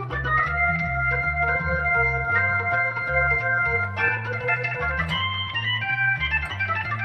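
Custom-assembled Hammond B3/A100 tonewheel organ being played: held chords over a moving bass line, the chords changing about four seconds in and again near six seconds.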